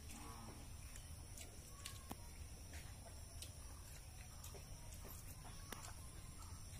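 Quiet eating sounds: scattered light clicks of fingers and food against steel plates, with a few faint, short animal calls, mostly near the start.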